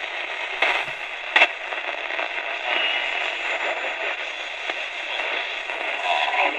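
AM static from the Tecsun R-208 portable radio's small speaker as it is tuned between stations, with two sharp crackles about a second in.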